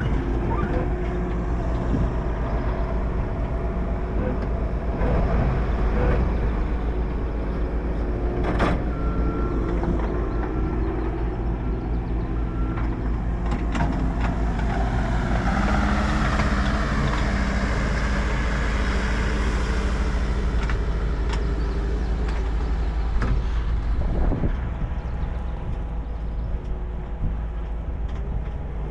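Tractor engine running steadily while baling hay, with occasional sharp knocks and clatter from the machinery.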